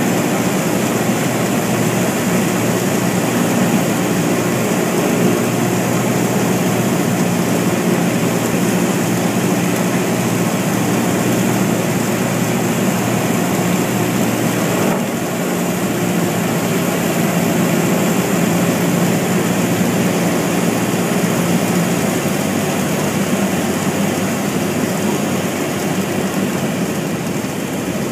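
Single-engine piston airplane's engine and propeller droning steadily, heard from inside the cockpit on final approach. The level drops slightly about halfway through and eases off a little more near the end.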